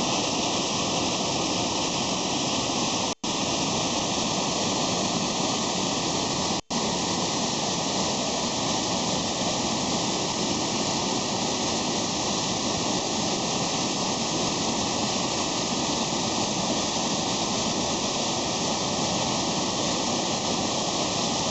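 Waterfall: water falling in a steady, continuous rush, with two very brief gaps in the sound about three and six and a half seconds in.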